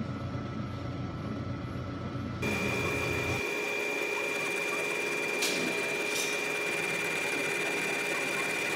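Vertical milling machine cutting a keyway into an electric motor shaft with an end mill: a steady machine whine with a strong high tone, with two sharp ticks partway through. It starts abruptly about two and a half seconds in, after a low mechanical rumble.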